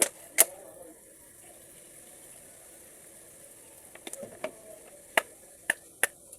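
Sharp clicks and clinks of small hard parts being handled and set down, Toyota Camry transmission valve body pieces, over a faint steady hiss. Two loud knocks open, a quick cluster comes about four seconds in, and three more single clicks follow near the end.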